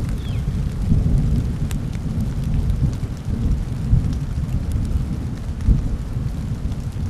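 Thunderstorm: a long, low thunder rumble that swells about a second in and keeps rolling, under steady rain hiss.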